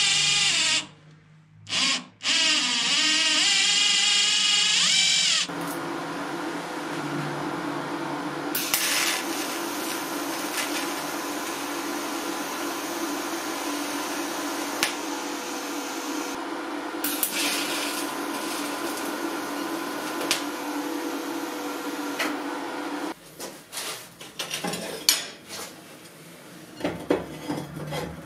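A drill runs into a steel piece held in a vise, stops briefly about a second in and starts again. From about five seconds in, a TIG welding arc gives a steady hum and hiss for some seventeen seconds. Near the end come scattered clicks and knocks of steel parts being handled and fitted.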